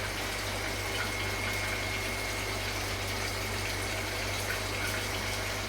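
Water pump running steadily: water rushing over a low hum, with a thin high whine on top.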